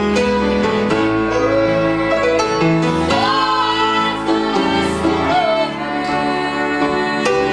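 Southern gospel song played live: a woman singing with grand piano accompaniment.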